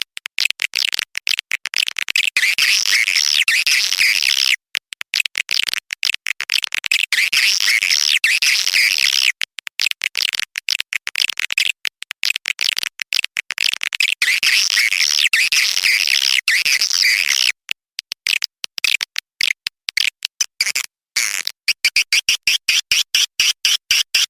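Swiftlet call-sound recording used in swiftlet farming to lure swiftlets into a nesting house: dense, rapid, high-pitched twittering chirps in runs of several seconds broken by short pauses. Near the end the twitter turns into a steadier, quickly pulsing trill.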